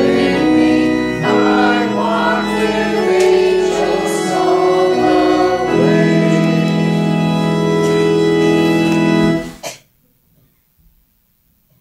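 Church organ with voices singing a hymn, closing on a long held chord that cuts off sharply about nine and a half seconds in, leaving near silence.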